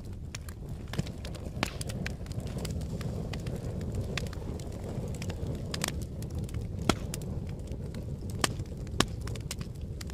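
Wood fire burning with a steady low rumble and irregular sharp crackles and pops, a few louder pops in the second half.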